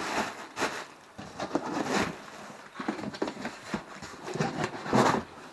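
Plastic wrapping and a cardboard box rustling and crinkling in irregular bursts as hands handle a wrapped new crankshaft.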